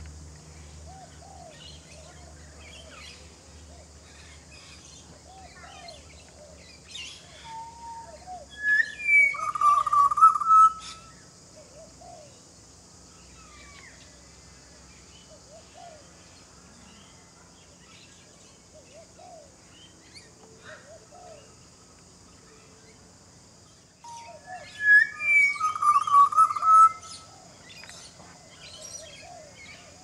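Pied butcherbird singing two similar fluted phrases, one about nine seconds in and the same phrase again near the end, with soft short chirps scattered between them.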